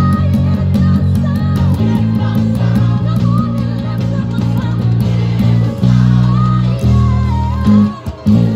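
Electric bass guitar played fingerstyle: a busy gospel bass line of quick plucked low notes under a higher wavering melody from the backing music. The playing breaks off briefly near the end.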